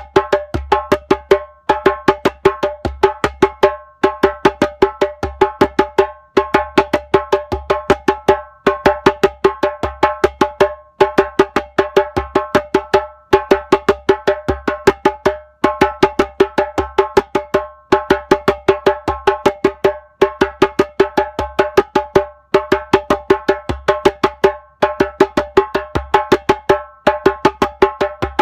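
Repetitive percussion music: quick runs of struck, ringing notes in a short pattern that repeats about every two seconds, over a low bass pulse.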